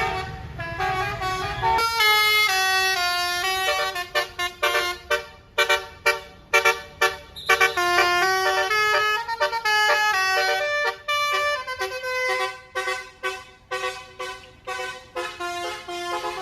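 A bus's Basuri 'telolet' musical air horn plays a tune of clear notes that step up and down. It starts with held notes, then from about four seconds in switches to quick short blasts. A low rumble underneath stops about two seconds in.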